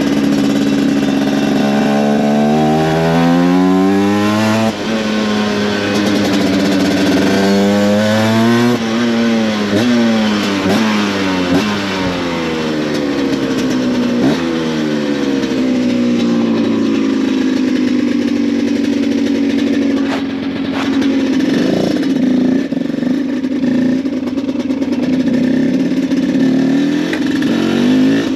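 Cagiva Mito 125's single-cylinder two-stroke engine through an Arrow exhaust, heard from the rider's seat under way. The revs climb, drop sharply about five seconds in at a gear change, and climb again. Then they fall away as the throttle eases off, and the engine settles to a steady run.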